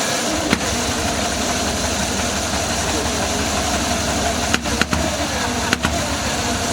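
Vincent HRD Black Lightning's 998 cc V-twin engine running steadily, just after being started, with a few sharp cracks about half a second in and again near the end.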